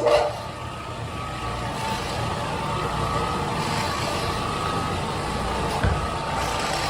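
Floor-cleaning machine running steadily: an even motor hum over a constant rushing noise.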